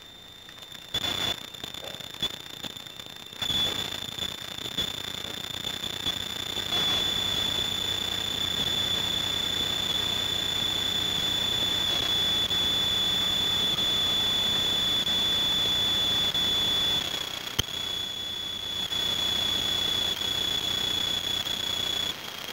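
Sheet of paper rustling and creasing as it is folded by hand, under a steady high-pitched electronic whine that is the loudest sound. The rustling starts a few seconds in and dies away with a click a few seconds before the end.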